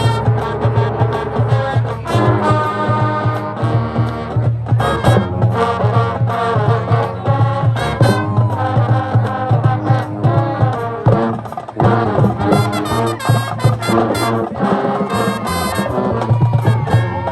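High school marching band playing: brass horns carrying the tune over a heavy drumline beat.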